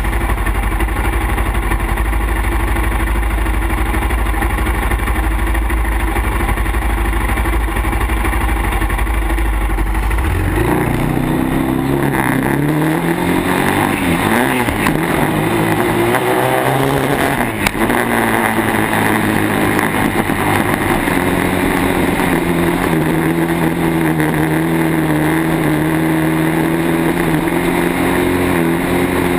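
Yamaha ATV engine idling with a steady low thump. About ten seconds in it revs up as the quad pulls away, its pitch rising, falling and rising again. There is a brief dip just past the middle, then it holds a steady, slowly climbing pitch at speed.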